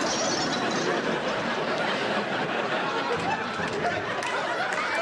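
Studio audience laughing, a long, sustained wave of laughter that fills the whole stretch.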